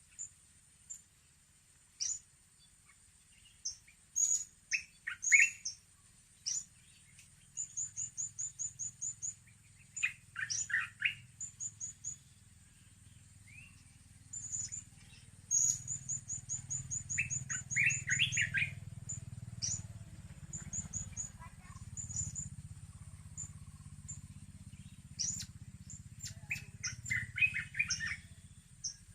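Small parrots, blue-crowned hanging parrots (serindit), calling: thin, high chirps, some strung into quick runs of about ten notes. Every few seconds there is a short burst of lower chattering calls.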